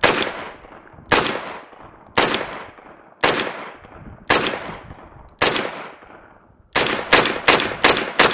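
Grand Power Stribog SP10A3 10mm roller-delayed blowback pistol firing semi-automatic. About six shots come roughly a second apart, then a quick string of about six shots follows near the end, each shot ringing off in a short echo.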